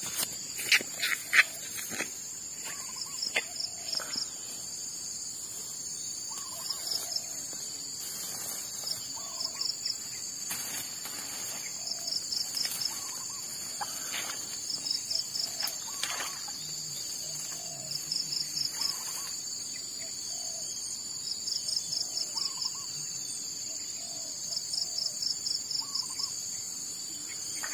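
Steady high-pitched insect drone with a rapid chirping trill repeating every two seconds or so, over faint short bird calls.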